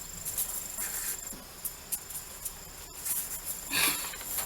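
A steady high-pitched insect trill, with scattered light clicks and rustling; a brief louder sound near the end.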